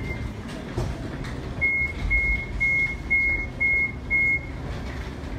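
CAF Urbos 3 tram's door-closing warning sounding six even beeps at one pitch, about two a second, starting just under two seconds in: the doors are about to close. A low rumble continues underneath.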